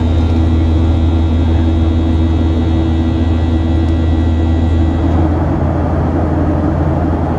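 Steady jet-airliner cabin noise in flight: the Boeing 737-800's CFM56 turbofans and the airflow give a constant deep hum with a rushing hiss over it. A faint high whine stops about five seconds in.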